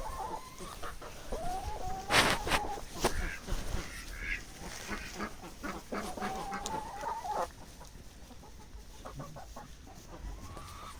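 Farm animals calling: several drawn-out, slightly gliding calls and short sharp sounds, with the loudest call about two seconds in.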